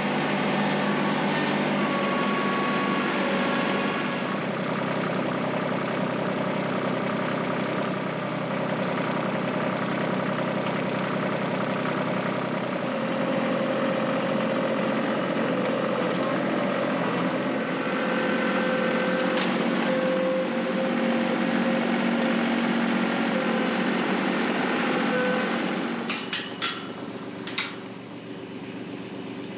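Compact farm tractor engine running steadily while the tractor carries a round hay bale on its front loader. Near the end the engine sound falls away and a few sharp clanks follow.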